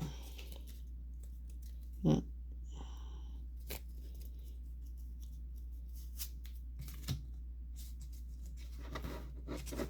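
Booster packs and trading cards being handled: scattered light clicks and rustles of cards and foil wrappers, with a soft thump about two seconds in, over a low steady hum.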